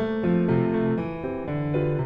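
Background music: a keyboard melody of held notes that change every quarter to half second.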